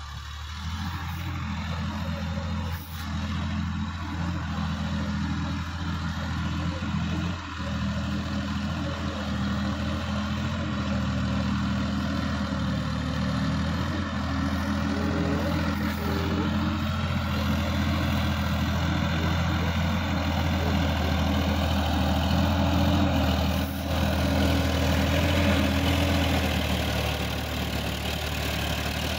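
Sonalika DI-50 RX diesel tractor engine running steadily under load as it pulls a rotary tiller through the soil. The sound grows slowly louder as the tractor comes closer.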